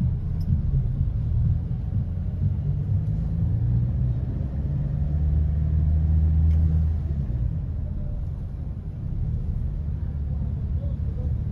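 Slow street traffic: a car's engine running close by as it creeps past, a low rumble that is loudest about halfway through and eases off soon after.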